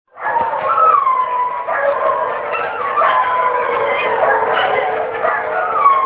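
Dogs howling: several long, wavering howls overlapping, some sliding down in pitch, starting abruptly just after the start.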